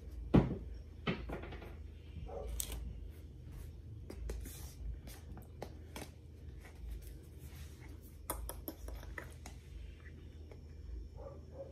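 Handling of a plastic cornstarch tub and a metal spoon: a sharp knock about half a second in, then scattered light clicks and short scrapes as the spoon goes into the powdery starch.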